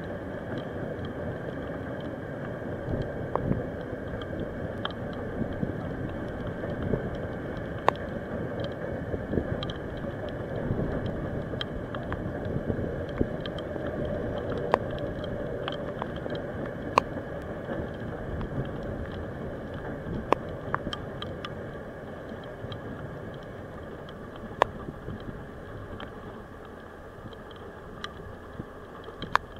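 Steady rumble of a container freight train that has just passed, fading slowly as it moves away. Sharp, irregular ticks sound throughout.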